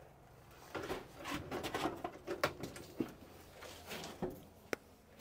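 A string of knocks and rattles as a hinged metal cover by a tray of spare bulbs is handled and swung, ending in one sharp click a little before the end.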